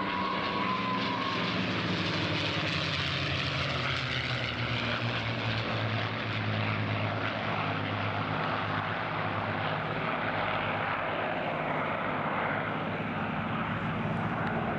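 P-51 Mustang's Merlin V12 piston engine running in a flypast, a steady propeller drone that falls slowly in pitch as the aircraft passes.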